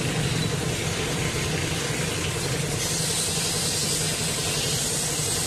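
Pressure-washer pump for washing motorcycles running with a steady hum, over a hiss of spraying water that grows a little brighter about three seconds in.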